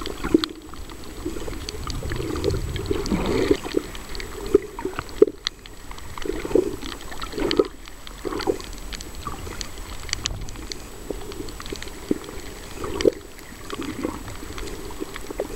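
Water sloshing and gurgling around an underwater camera while snorkeling, in short uneven swells with scattered sharp clicks.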